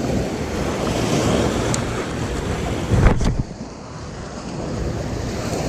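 Small sea waves breaking and washing over a rocky, pebbly shore, with wind buffeting the microphone. A short thump about three seconds in, after which the surf sound dips and slowly builds again.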